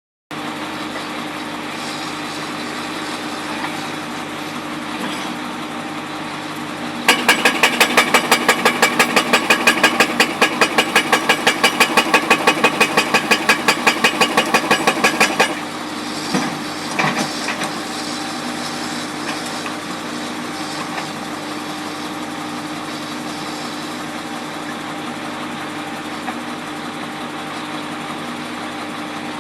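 Jackhammer breaking old material, hammering rapidly at several blows a second for about eight seconds, starting about 7 seconds in, over the steady running of a machine engine. A few single knocks follow just after the hammering stops, then only the engine runs on.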